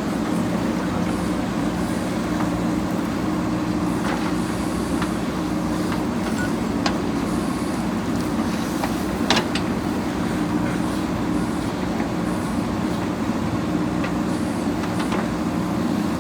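JCB backhoe loader's diesel engine running steadily, with a few sharp knocks; the loudest comes about nine seconds in.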